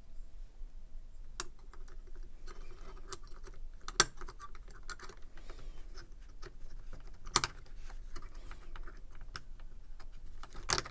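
Small pocket-knife parts clicking and tapping together as the knife is reassembled by hand, a run of light clicks with three sharper knocks, about four seconds in, seven seconds in and near the end.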